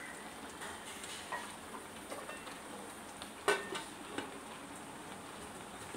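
Chicken gravy sizzling and simmering in a kadai on full flame, with small clinks. About three and a half seconds in, a single loud clank as the lid is set down on the pan.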